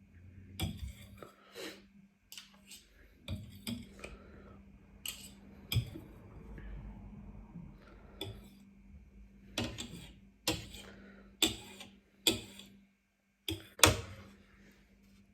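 Eating sounds: about a dozen irregular sharp clicks and clinks of utensils against a bowl, some loud, over a faint steady hum.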